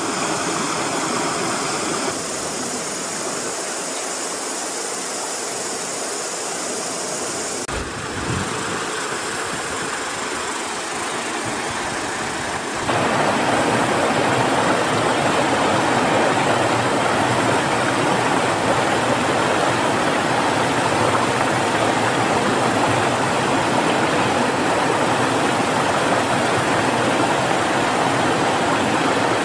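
Steady rushing of stream water, an even hiss with little bass, which changes a couple of times and grows louder about thirteen seconds in.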